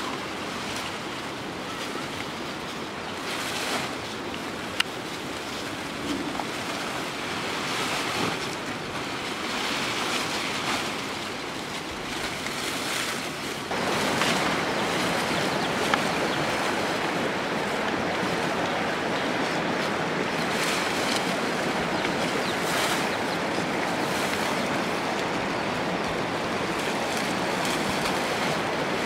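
A steady rushing hiss that steps up in loudness about halfway through, with occasional brief rustles of dry straw and leafy branches being handled.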